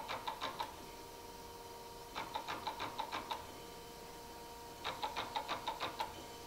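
Chevalier surface grinder's automatic incremental downfeed clicking in a quick run of about eight clicks at each table reversal, a run every two to three seconds, over a steady hum from the running machine.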